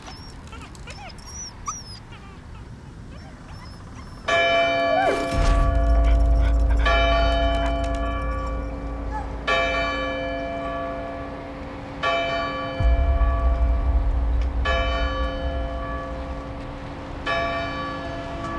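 A large bell tolls six times, about every two and a half seconds, each stroke ringing on into the next. A deep low rumble swells in beneath it after the first stroke and surges again about halfway through. Before the first stroke there are only a few faint high squeaks.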